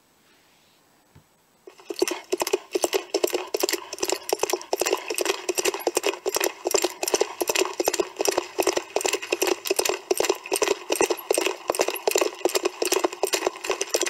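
Rapid, uneven clattering, many sharp clicks a second, starting abruptly about two seconds in after near silence.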